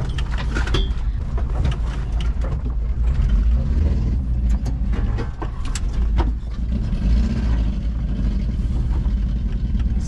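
Volkswagen Kombi van's engine running with a steady, loud low drone through a large hole in its exhaust. Scattered knocks and rattles as the van goes over a rough dirt track.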